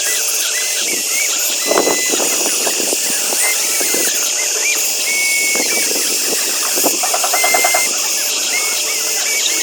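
Small electric motors and gearboxes of radio-controlled construction models whining as they switch on and off, with plastic clicks and rattles. A rapid pulsing buzz comes about seven seconds in.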